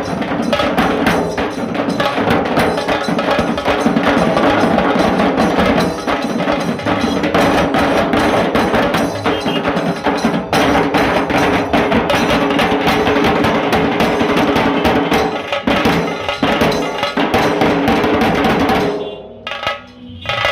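Dhol tasa band drumming: dhol barrel drums and stick-played tasa kettle drums struck in a dense, unbroken rhythm that stops abruptly about nineteen seconds in, then starts again right at the end.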